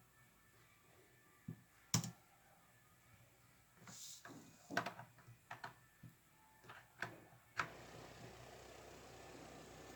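Several sharp clicks and knocks of small parts being handled, then about three-quarters of the way in a small recycled DC motor fan starts running with a steady noise that carries on.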